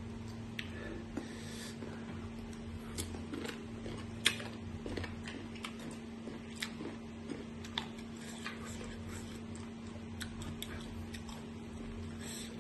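Chewing of crisp raw green mango pieces coated in chili salt, with scattered crunches and clicks, the sharpest about four seconds in. A steady low hum runs underneath.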